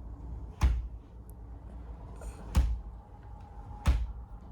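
Three sharp knocks, the second about two seconds after the first and the third just over a second later.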